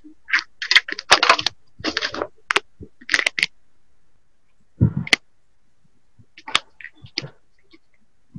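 Irregular short crackles and sharp clicks, packed close together for about the first three and a half seconds, then a few isolated clicks.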